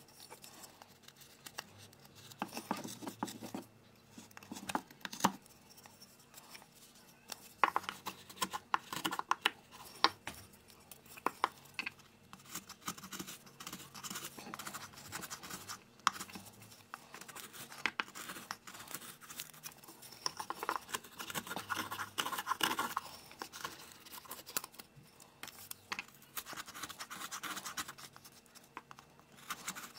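Opinel folding knife shaving a wooden spoon blank by hand: irregular cutting strokes that scrape through the wood, with sharp little clicks as shavings come away.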